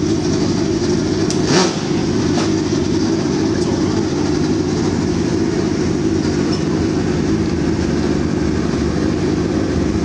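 Drag-racing motorcycle engine running steadily, with a short louder burst about a second and a half in.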